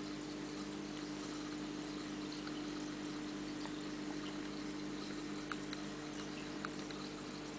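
Aquarium pump humming steadily over a haze of bubbling water, with a few faint ticks now and then.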